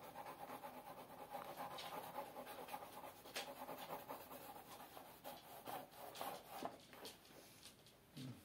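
Faint pencil strokes scratching and swishing on a large sheet of drawing paper, in short irregular strokes as the portrait is shaded.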